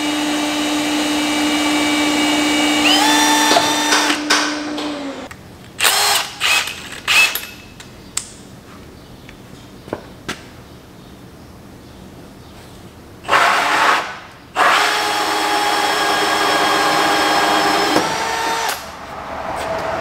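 Cordless drill running as it bores a pilot hole through the Roxor's plastic grille, a steady whine that steps up in pitch about three seconds in. A few short trigger bursts follow around six to seven seconds, then a pause, then another steady run from about fourteen to eighteen seconds.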